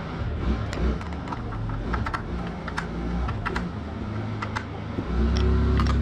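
Light, irregular metal clicks and taps of a spanner fitting and tightening a motorcycle chain guard's mounting nuts. A low rumble runs underneath and swells about five seconds in.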